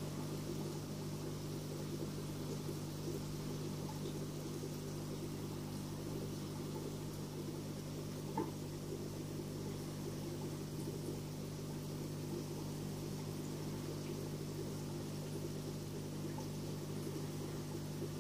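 Steady electric hum of an aquarium pump, several low tones held constant under a soft hiss, with one faint tick about eight seconds in.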